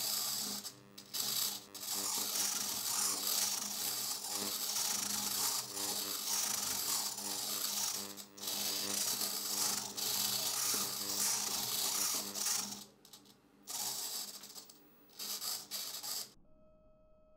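Two hobby servos on a pan-tilt camera mount whirring and grinding through their gears as they swing the camera, with a steady buzz under it. The movement comes in long spells broken by short pauses, and it stops near the end.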